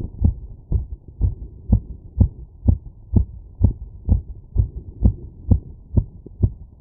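Human heartbeat heard through a stethoscope after exertion: regular, even thumps about two a second, deep and muffled.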